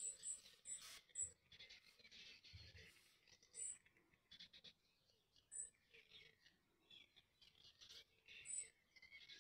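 Faint soft scratching of a synthetic quill watercolour brush drawn across smooth watercolour paper in short strokes. Several brief high chirps of a small bird sound in the background.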